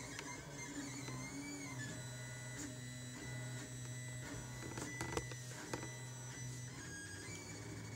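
Lulzbot Mini 3D printer running a print: its stepper motors hum in steady tones that jump to a new pitch every second or so as the print head and bed change speed, with a few faint clicks about five seconds in.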